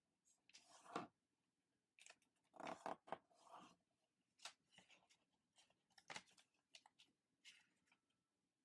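A 15 cm sheet of origami paper being handled and folded: a string of short, irregular rustles and crinkles as it is opened out, flattened and creased, the loudest about a second in and around three seconds in.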